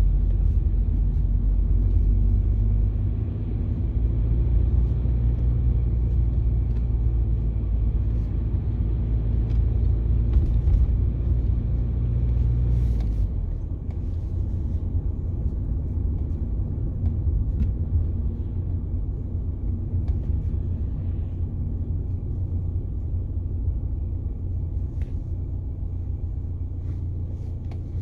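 Car driving at town speed, heard from inside the cabin: a steady low rumble of engine and tyres on the road. The engine note changes and the rumble eases a little about halfway through.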